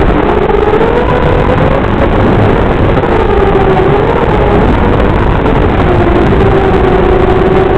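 LDE180 racing quadcopter's brushless motors and propellers whining over heavy hiss, the pitch wavering up and down with the throttle.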